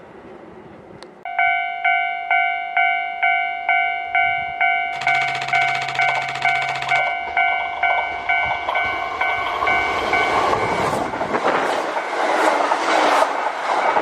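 Level-crossing warning bell starts about a second in and rings about twice a second. A train horn sounds for about two seconds partway through, then the electric train's rushing and wheel noise grows and covers the bell near the end as it passes.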